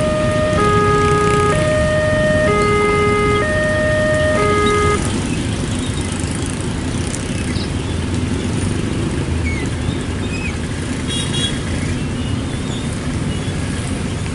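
Railway level-crossing warning alarm sounding a two-tone signal, alternating about once a second, which stops about five seconds in. After that come a steady hiss of rain and motorcycle traffic crossing the tracks, with a short high beep about eleven seconds in.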